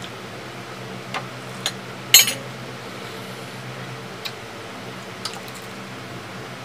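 A few sharp clicks and clinks of dishes and utensils on a glass tabletop, the loudest about two seconds in, over a steady low hum.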